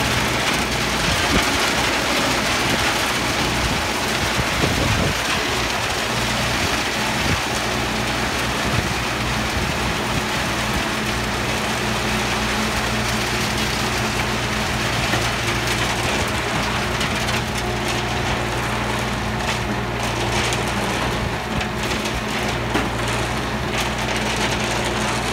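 Schwing Stetter SLM 4000 self-loading concrete mixer's diesel engine running steadily, with a continuous hiss and rattle over it.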